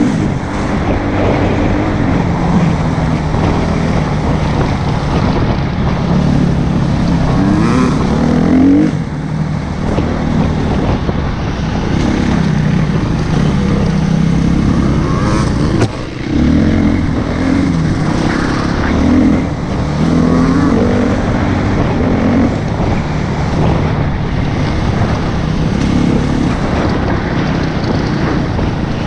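Husqvarna FE 350 dirt bike's single-cylinder four-stroke engine running under load on a trail, revving up and down with the throttle. The throttle closes briefly twice, about a third of the way through and again about halfway.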